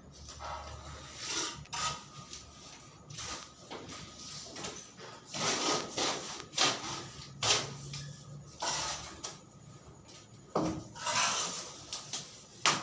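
Irregular scraping and rubbing strokes of hand work on building materials, with sharp knocks about ten and a half seconds in and near the end.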